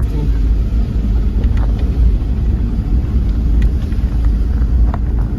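Steady low rumble of a 4x4 driving on a rough mountain road, heard from inside the cabin, with a few light knocks.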